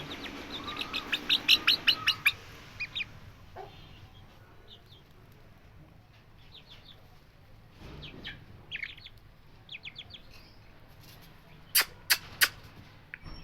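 Birds chirping: a quick run of loud, high chirps in the first two seconds, then scattered short chirps, with three sharp clicks near the end.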